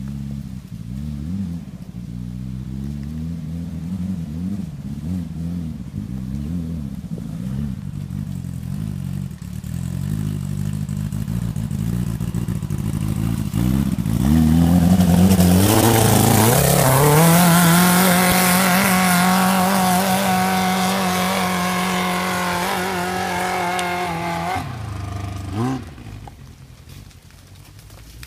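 Rail buggy engine revving up and down at low speed, then rising sharply about fourteen seconds in and held at steady high revs for about ten seconds while the buggy climbs a steep, loose dirt hill under load. Near the end the revs drop off suddenly with one last brief blip, and the engine fades.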